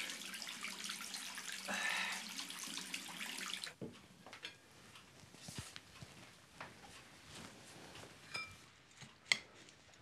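Tap running into a sink, a steady rush of water that cuts off abruptly about four seconds in. After that, low room tone with a few light clinks of crockery and cutlery, two sharper ones near the end.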